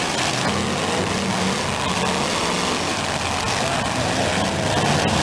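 Engines of vintage demolition derby cars running, their pitch rising and falling as they rev.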